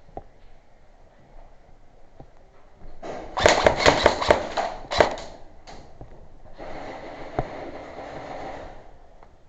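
Airsoft hopper being worked to clear a BB jam: a loud, irregular burst of rattling clicks about three seconds in, then a steady whir for about two seconds.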